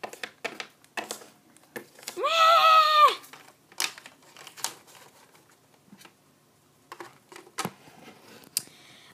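Small plastic toy figures tapping and clicking against a tabletop as they are hopped along by hand. About two seconds in, a voice gives one held note of about a second, which is the loudest sound here.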